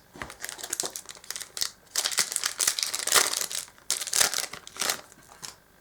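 Foil wrapper of a Yu-Gi-Oh! Duelist Alliance booster pack being crinkled and torn open by hand, a run of irregular crackles that dies away near the end.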